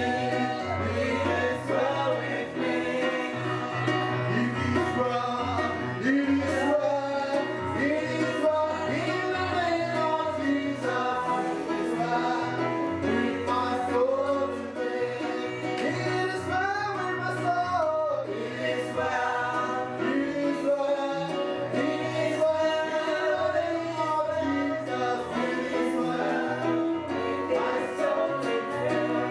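Gospel song: several voices singing over instrumental backing, with a bass line stepping from note to note beneath them.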